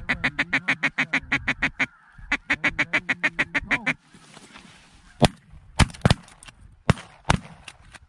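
Duck call blown in a rapid, even feeding chuckle of about eight notes a second, pausing briefly about two seconds in. From about five seconds in, a volley of roughly six shotgun blasts as the hunters fire on the incoming flock.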